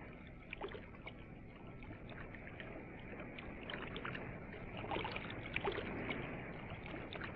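Faint, steady river water noise with scattered small splashes and clicks, dull and muffled as on an old film soundtrack.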